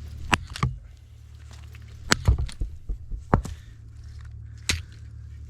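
Sharp clicks and knocks of small plastic and metal parts being handled and pried apart while a cordless oscillating multi-tool is taken apart. There is a cluster of knocks about two seconds in, and more come singly after it, over a steady low hum.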